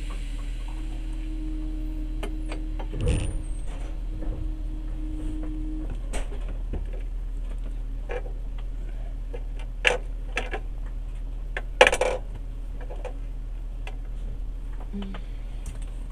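Steady low hum of a passenger train carriage standing at a station, with a steady tone that stops about six seconds in and scattered clicks and knocks, the loudest about three, ten and twelve seconds in.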